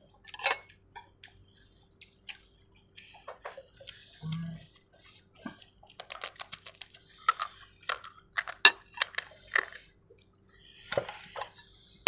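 Crisp pani puri shells crackling and crunching as they are cracked open with the thumbs and eaten: a run of sharp little cracks and clicks, sparse at first and thick for a few seconds past the middle.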